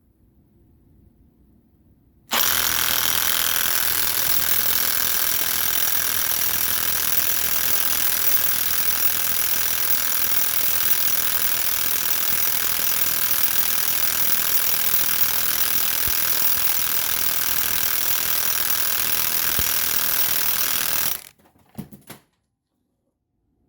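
Werktough impact wrench hammering steadily for about nineteen seconds, starting suddenly a couple of seconds in, followed by a brief short burst near the end.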